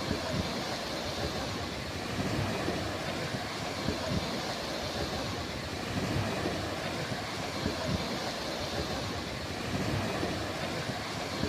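Sea waves washing onto a beach: a steady rush of surf that swells about every four seconds, with a low rumble under it.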